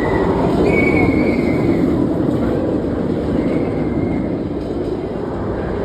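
Nemesis Reborn steel inverted roller coaster train running along its track, a loud, steady rumble that eases slightly toward the end, with faint high squeals on top.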